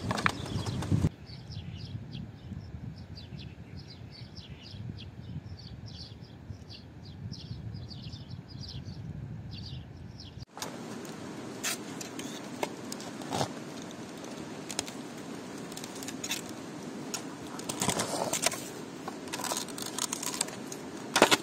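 A steel shovel scrapes soil and stones for about a second. Then birds chirp with short repeated calls over a low wind rumble for several seconds. After that the shovel scrapes, clinks and digs into earth and gravel, with louder strikes near the end, as an underground cooking pit is opened.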